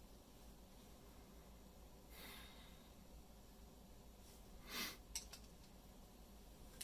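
Near silence broken by a person breathing out twice, a faint breath about two seconds in and a louder one near five seconds, followed by two faint clicks.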